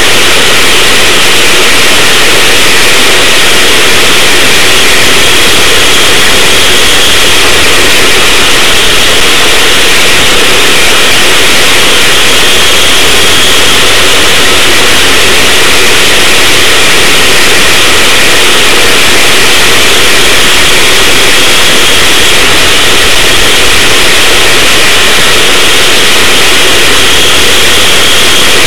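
Racing go-kart's small engine running hard from an on-board camera, so loud that the recording is overloaded and distorted. The roar swells a little every several seconds as the kart laps the track.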